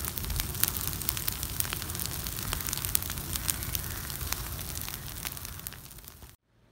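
A burning heap of cut thistles crackling, with many sharp pops over a steady rush of flame; it cuts off suddenly near the end.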